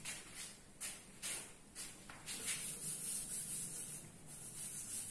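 Chalk scraping on a blackboard, faint: a few short strokes, then a longer run of scratching in the middle.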